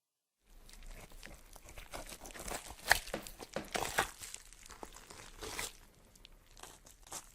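Crunching, crackling sound effect: a dense run of irregular snaps and crackles that starts about half a second in and is loudest in the middle, with two sharp cracks near three and four seconds.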